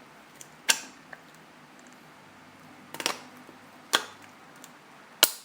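Four sharp clicks and knocks, spaced a second or more apart, as a suction cup is worked onto and pulled at an iPhone 5's screen to lift it.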